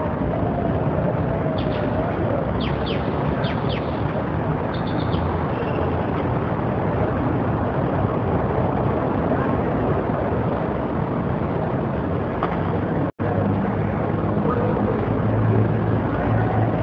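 Steady outdoor background noise, an even rushing hiss and rumble, with a few short, high bird chirps in the first few seconds. The sound cuts out completely for an instant about three-quarters of the way through.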